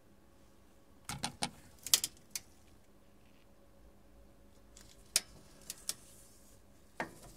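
Short metallic clicks and clinks of a wrench on a nut of the ball accelerator's steel frame: a quick cluster a second or two in, then single clicks about five, six and seven seconds in.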